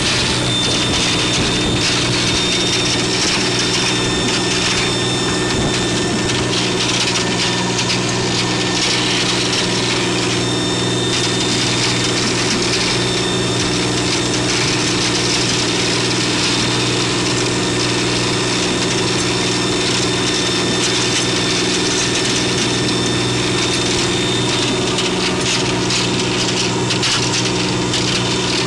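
Fishing boat's engine running steadily at a constant pitch, over a steady rush of water from the foaming wake.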